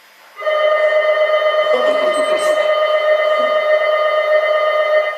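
Incline cable car's electric departure bell ringing loudly and steadily for almost five seconds, then cutting off, heard inside the car: the signal that the car is about to start moving.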